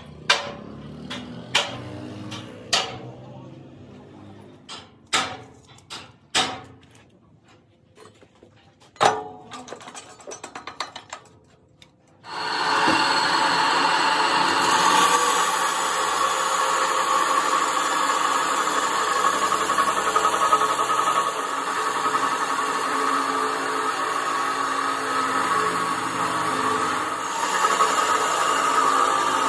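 A series of separate sharp knocks. About twelve seconds in, an abrasive cut-off saw starts suddenly and runs steadily, its wheel grinding into a steel pipe by the end.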